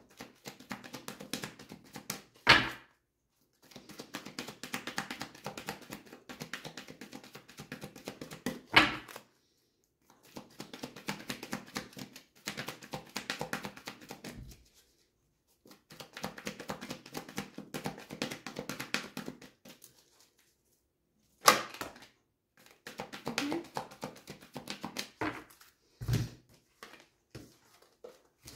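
Deck of oracle cards being shuffled by hand in bursts of rapid card flicks a few seconds long, with short pauses between bursts and four sharp knocks from handling the deck.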